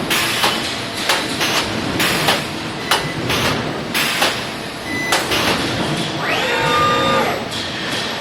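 Robotic spot-welding cell at work: a string of sharp, irregular clanks and snaps from the weld guns clamping and welding. About six seconds in, a robot servo motor whines for about a second, rising, holding and falling in pitch.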